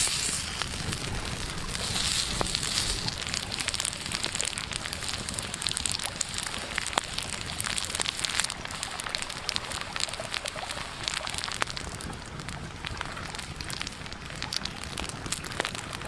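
A flattened cake of rice sizzling as it crisps on a hot stone slab over an open wood fire, a steady hiss dotted with frequent small crackles from the rice and the burning wood.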